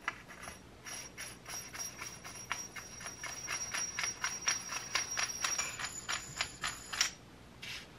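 Small metallic clicks in a quick, even run, several a second for about six seconds, as the threaded parts of a pit bike rear shock absorber are screwed together by hand.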